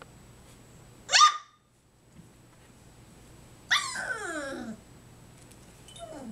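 Three-and-a-half-week-old puppies yipping and whining: a sharp, loud high yip about a second in, then a longer whine that slides down in pitch near the middle, and a faint short falling whimper at the end.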